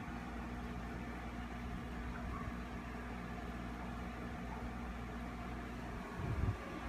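Steady low mechanical hum of room noise, with a brief low thump about six seconds in.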